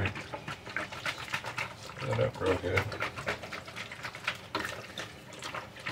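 Two-quart plastic jug of apple juice shaken hard by hand, the juice sloshing and slapping inside in quick, uneven strokes, about three a second: mixing in the sugar and bread yeast for homemade wine.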